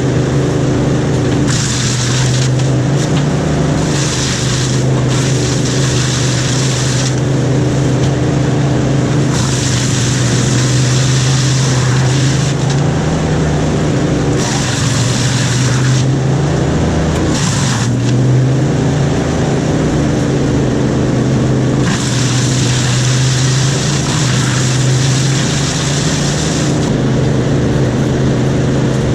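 An engine running steadily, its low drone shifting a little in pitch, with a hiss that comes and goes several times.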